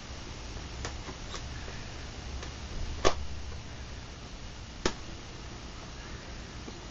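A pocket knife clicking and tapping against a cardboard retail box as it is cut open, with a few faint clicks early and two sharp louder clicks about three and five seconds in, over a low background hum.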